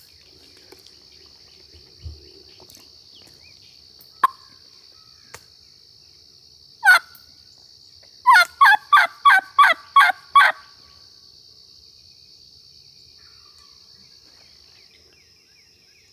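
A series of about seven loud turkey yelps in quick succession, about three a second, after a single yelp note a second or so earlier. A steady insect trill runs underneath.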